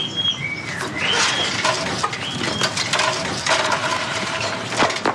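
Small paperback picture books being gathered off a table and pushed into a cloth bag: paper rustling and light clattering knocks, with high whistling chirps in the background.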